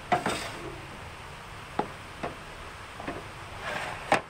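Kitchen containers being handled and set down on a metal counter: about half a dozen sharp knocks and clatters, the loudest at the start and near the end, with a brief rustle just before the last.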